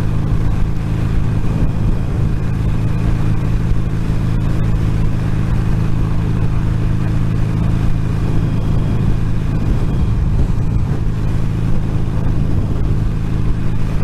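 Wind and road noise inside a motorcycle helmet at a steady 70 mph on a noisy concrete road surface, picked up by a microphone in the helmet's cheek pad, with the motorcycle engine's steady low drone underneath.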